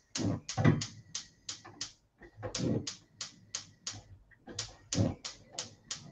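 Gas hob spark igniter clicking rapidly, about four sharp ticks a second in runs with short pauses, as a burner is lit under a pan. A few duller knocks fall among the clicks.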